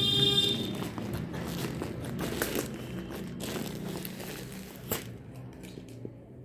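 Packaging crinkling and rustling as it is handled, with scattered sharp clicks and a sharper click about five seconds in.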